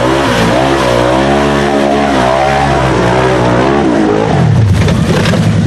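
Off-road vehicle engine revving under load, its pitch rising and falling for about four seconds, then dropping to a lower, steadier note.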